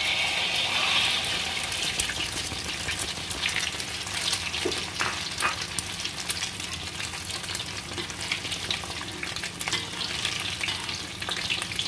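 Beaten egg omelette mixture frying in hot oil: a steady sizzle dense with small crackles and pops, loudest in the first second or so as the egg hits the oil.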